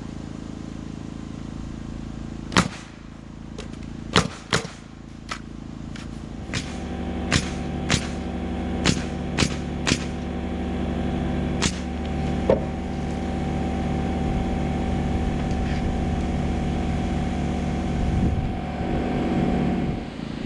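Framing nailer driving nails, about a dozen sharp shots at irregular intervals, over a steady motor hum. About six and a half seconds in, the hum grows louder and takes on a rhythmic pulse.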